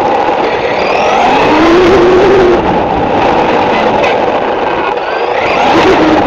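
Radio-controlled buggy's motor and drivetrain running hard, heard from on board, with rough road and tyre noise. The pitch climbs and falls with the throttle, peaking about two seconds in and rising again near the end.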